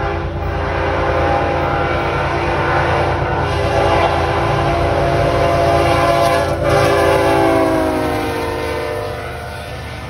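Diesel freight locomotive's horn sounding one long multi-tone blast over the engine's low rumble; near the end the chord slides down in pitch as the locomotive passes and fades, leaving the rumble of the passing train.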